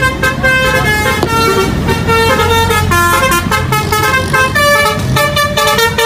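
Multi-tone 'telolet' horn of an Indonesian tour bus, a Basuri-type horn, playing a fast tune of stepped notes over a low rumble of the bus.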